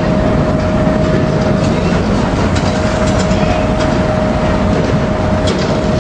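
Heavy cargo-handling machinery running steadily and loudly: a dense rumble with a constant whine held above it, and a few faint light clicks.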